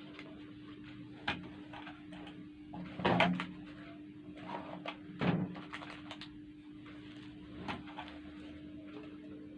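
Plastic clicks and knocks from laptop parts being handled, the loudest a short clatter about three seconds in and a thump about five seconds in, over a steady low hum.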